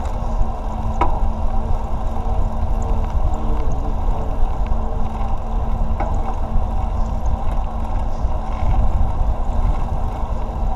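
Steady low rumble of wind on the microphone and tyre noise on asphalt, from a camera on a moving bicycle. A single click about a second in.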